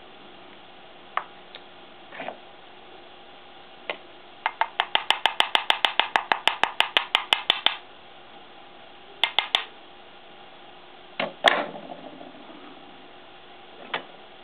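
A small tube of gold powder being tapped rapidly, about eight light taps a second for some three seconds, to sift the powder onto the lacquered crack of a ceramic cup in kintsugi repair. A few more scattered taps follow, the loudest one a little past the middle.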